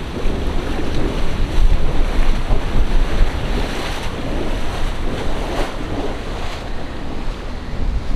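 Wind buffeting the microphone over the rush of water pouring into the canal from a side outflow, a steady dense noise with a heavy low rumble.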